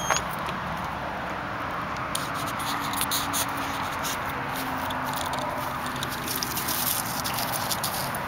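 Steady rush of interstate highway traffic, with scattered clicks and crackles of a dog chewing a stick and moving through dry grass from about two seconds in. A brief high squeak right at the start.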